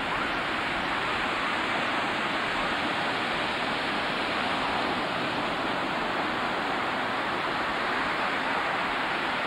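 Ocean surf washing onto a beach: a steady, even rushing noise.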